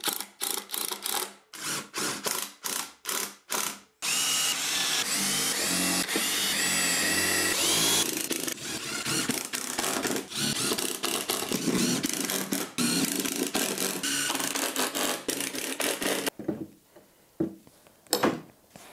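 Cordless drill-driver driving and countersinking screws into the wooden planks of a workbench top: a run of short pulses in the first few seconds, then a long stretch of almost unbroken running with the motor pitch rising and falling. It stops about three seconds before the end, leaving a few knocks.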